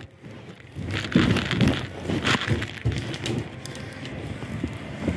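Irregular knocks, footsteps and rustling of gear as an airsoft player moves.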